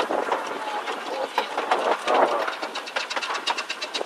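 Small passenger train heard from on board a carriage, its wheels clicking and rattling rapidly over the track as it runs around a curve.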